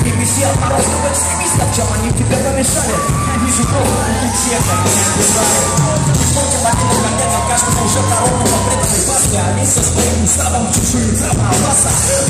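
Rock band playing live through a hall PA, with a heavy, pounding bass guitar line and drums, and electric guitar lines sliding in pitch in the middle.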